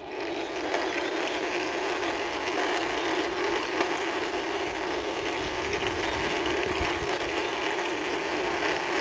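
Toy tourist bus pushed along by hand, its small plastic wheels rolling with a steady grinding rattle.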